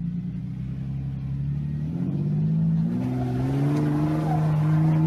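Lifted Jeep Cherokee XJ's engine revving hard under load as it climbs a steep rock ledge. The engine is steady at first, then its pitch climbs about two seconds in and stays high.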